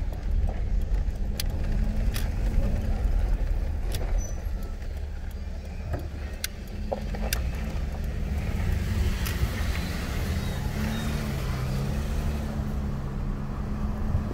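Car engine and road noise heard from inside the cabin while driving slowly: a steady low rumble whose engine pitch shifts a little, with scattered light clicks and rattles.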